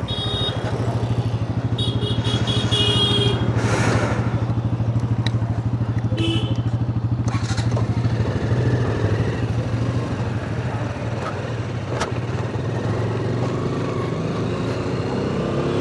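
Motorcycle engine running steadily while riding in city traffic, a constant low hum, with a few short high-pitched beeps in the first half.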